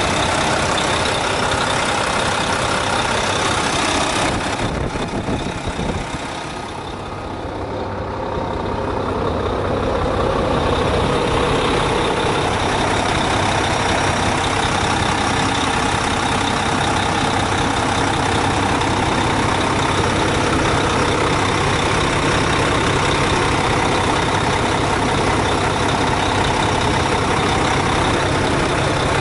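Mack dump truck's diesel engine idling steadily, heard close up in the open engine bay. About five seconds in the sound drops a little and goes duller for a few seconds, then comes back full.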